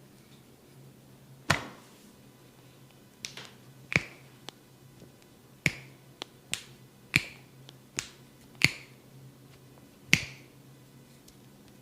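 Skin cracking during a massage: about ten sharp snaps of the barber's hands on skin, irregularly spaced.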